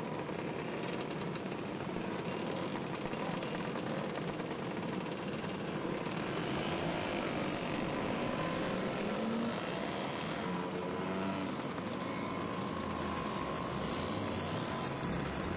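Several motor scooter engines running together, the buzzing engine notes rising and falling as they rev, most clearly in the middle.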